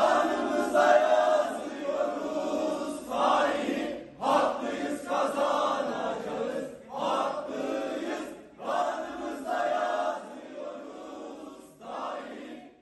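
A group of people chanting in unison in phrases a few seconds long, with short breaks between them.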